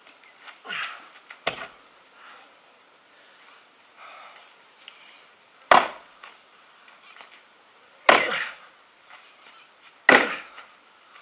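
Axe chopping wood on a chopping block: a couple of lighter knocks about a second in, then three heavy blows about two seconds apart in the second half.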